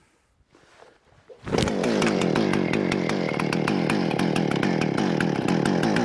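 Chainsaw running steadily at high speed, cutting into a large pine log. It starts abruptly about a second and a half in, after near silence.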